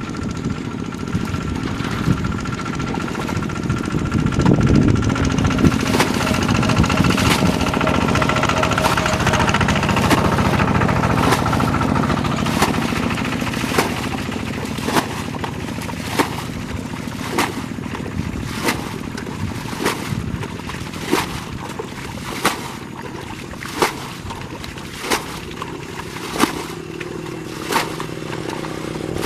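An engine running steadily, loudest through the first half and fading after. In the second half, sharp impacts repeat about every second and a quarter.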